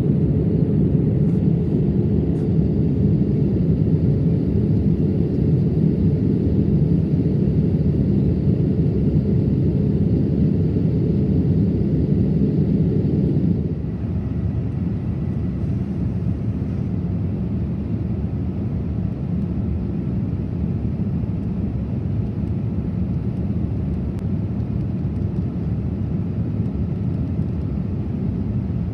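Steady cabin noise of a Boeing 787-8 airliner in cruise: a low rumble of airflow and engines. About halfway through it drops to a slightly quieter, thinner hum.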